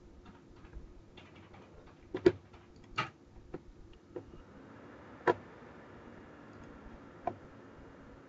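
Computer mouse clicks and keyboard keystrokes: a quick double-click about two seconds in, a few lighter key taps, then single sharp clicks about five and seven seconds in. A faint steady hum comes in about halfway.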